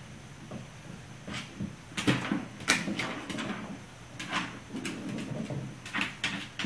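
A puppy batting an ice cube around on a hardwood floor: irregular sharp clicks and taps of claws and the skidding ice cube striking the wood, coming in quick clusters from about two seconds in.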